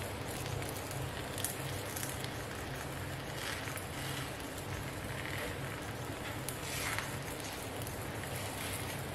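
Steady rushing hiss of a gas stove burner on low flame under a cast-iron tawa, with a few faint brushing and sizzling touches as a hand presses the oiled chapati on the hot pan.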